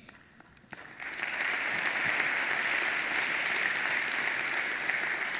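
Audience applauding: a few scattered claps about a second in, then steady, dense applause that eases slightly near the end.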